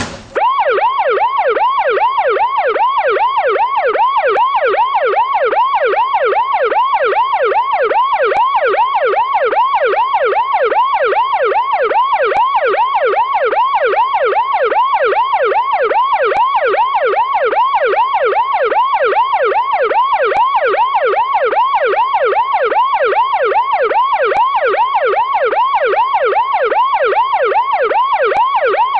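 Police siren in a fast yelp, its pitch sweeping up and down about three or four times a second, steady and unbroken after cutting in sharply just after the start.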